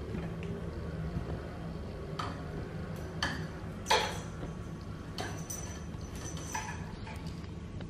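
Scattered clicks and taps from a kitten playing on a tile floor, its claws and paws knocking against the tiles and a wooden chair leg, with the loudest knock about four seconds in. A steady low hum runs underneath.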